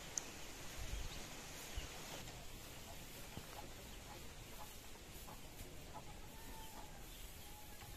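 Chickens clucking faintly, with a few short clucks and one brief call in the second half.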